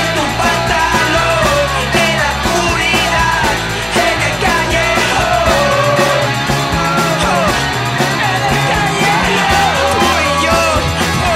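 Raw, dirty rock'n'roll with shouted singing over a stepping bass line and drums, loud and unbroken.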